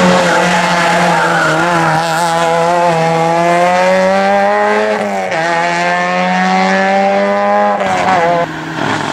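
Race car engine under hard acceleration, its note climbing in pitch, dropping sharply at an upshift about five seconds in, then climbing again in the next gear. The sound cuts off about eight seconds in.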